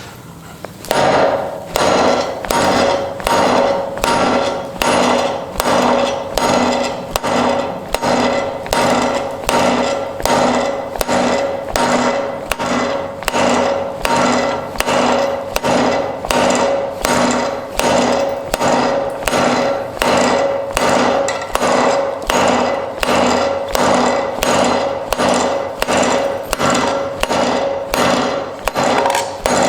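Hammer blows on hot rebar over a small forge-welded wrought-iron anvil with a steeled face, struck in a steady rhythm a little under two a second, each blow ringing. This is a beating test of the anvil's forge welds.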